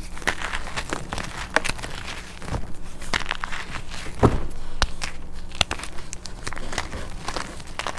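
Crunchy chalk being crushed by hand, with dense, irregular crunches and crackles and one louder crunch about halfway through.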